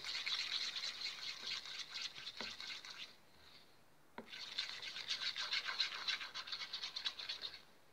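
A pink stick scraping quickly and repeatedly around a bowl, stirring glue, glitter and detergent as the slime begins to form. Two bouts of fast strokes with a pause of about a second in between.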